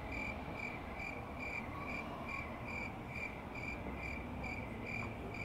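A short high-pitched beep repeating evenly about twice a second, over low background noise.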